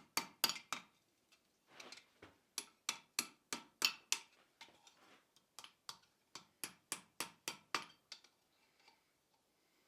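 Hand hammer striking hot steel on an anvil while a leaf is forged, in runs of quick blows about three a second with short pauses between them. Each blow has a brief metallic ring, and the hammering stops about eight seconds in.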